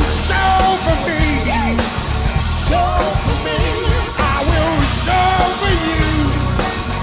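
Live rock band performance: a lead vocal sings wavering, held notes over full band backing with bass and a steady drum beat.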